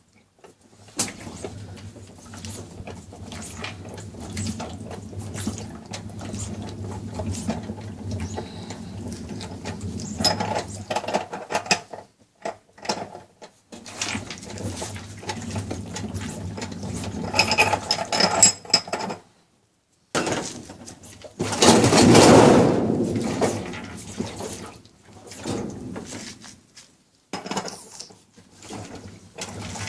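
Hand tools working on a top-loading washing machine while its wash basket is being removed: scattered clicks, knocks and ratcheting over a steady low hum, with one louder rush of noise about two-thirds of the way through.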